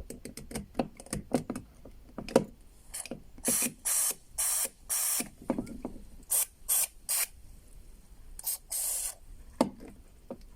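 Aerosol lubricant sprayed from a can onto a squeaking car door's hinges, in about ten short hisses, the last a little longer. The spraying is preceded by a run of sharp clicks and knocks from handling the can.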